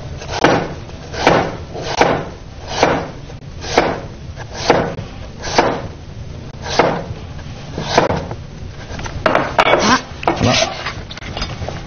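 A cleaver slicing a peeled celtuce stem into diamond-shaped pieces on a wooden cutting board, about one cut a second. Near the end comes a quicker run of cuts.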